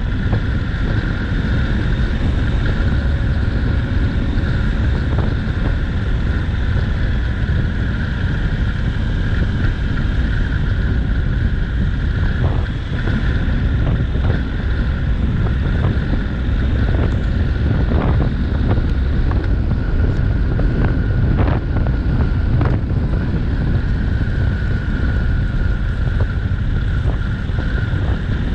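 Steady wind rush over the camera microphone on a Honda NC750X motorcycle cruising at an even speed, over the bike's parallel-twin engine. A few light ticks come through in the middle.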